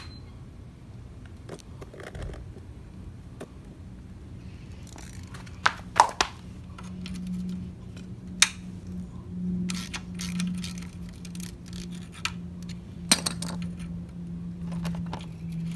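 Metal hand tool clinking and scraping against the drain bolt and frame of a lawn edger while it is fitted to loosen the oil drain plug. There are sharp clinks in a cluster about six seconds in and again about eight and a half and thirteen seconds in, over a low steady hum.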